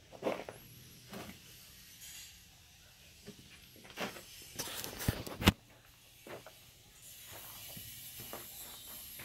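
Scattered rustles and knocks from footsteps and handling as someone walks around with the camera, with one sharp knock about five and a half seconds in. A faint steady hiss comes in near the end.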